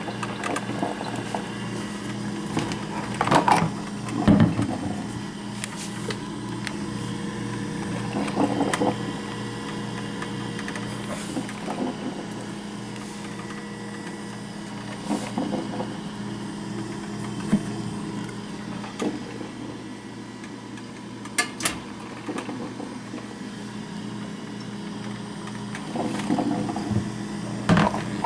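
1985 Black & Decker drip coffee maker running as it brews: a steady low hum with a regularly pulsing undertone, broken by a few scattered clicks and knocks.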